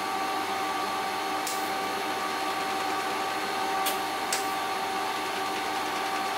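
Steady whirring hum of a water-cooled TIG welding machine's cooling unit and fan, with a few fixed tones over it, and two short clicks about four seconds in.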